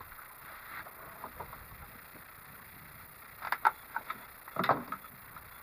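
Small boat drifting on calm water, a faint even background, broken by two short clusters of sharp knocks and clicks about three and a half seconds in and again just before five seconds in.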